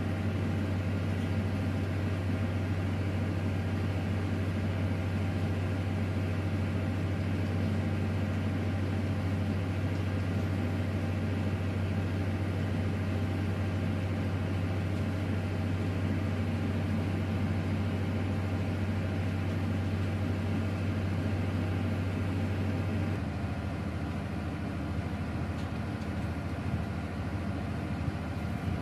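A large engine or machine running steadily, a deep hum with fainter steady overtones above it. Near the end the deep hum drops away, leaving a rougher, lower-level rumble.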